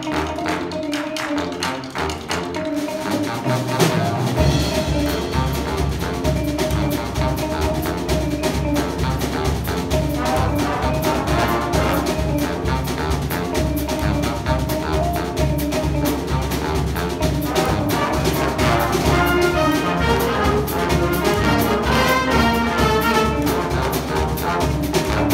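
Jazz big band playing with saxophones, brass, guitar, upright bass and drum kit. The low end of bass and drums comes in about four seconds in, and the band then plays on with a steady beat.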